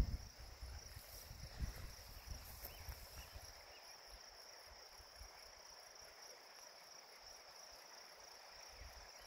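Faint, steady high-pitched chirring of insects. Over the first few seconds there are soft footsteps and bumps through the grass; after that only the insects remain.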